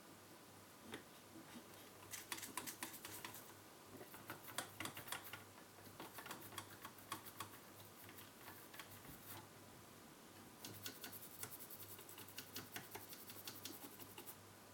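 Bursts of rapid light clicks and scratches from hand work on a circuit board, coming in three spells starting about two, six and ten seconds in, over a faint steady hum.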